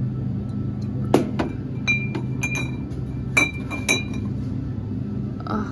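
Glass drink bottles clinking against each other as they are handled, about seven sharp knocks, several leaving a brief ringing tone. A steady low hum runs underneath.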